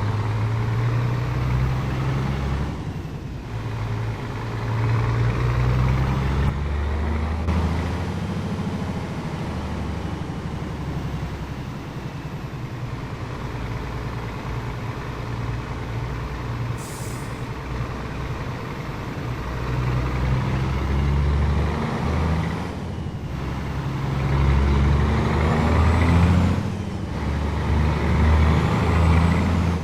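Scania 500S truck's diesel engine running through a straight-through exhaust, loud and deep, its revs rising and falling with four short breaks. A brief high air hiss about halfway.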